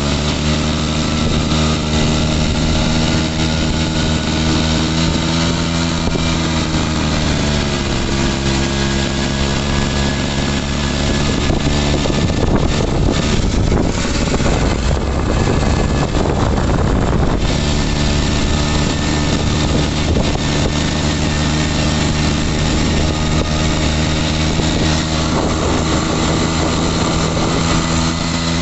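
Daelim motorcycle engine running at a steady idle. Its pitch sags slightly about a quarter of the way in, and it turns rougher and noisier for several seconds around the middle before settling back to an even idle.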